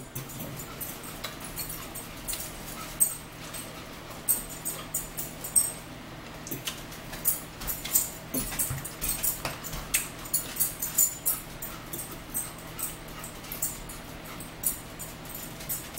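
Eating sounds at a table: metal forks clicking and scraping against ceramic bowls and close chewing of crisp salad, an irregular string of short, sharp clicks.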